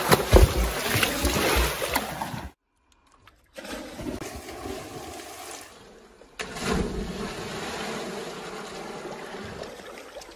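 Water splashing and sloshing close by, with low thumps. After a short break, a diver hits the water with a splash about six and a half seconds in, followed by churning water.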